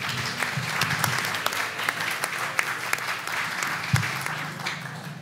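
Audience applauding, a dense patter of many hands clapping that thins out near the end. A single thump sounds about four seconds in.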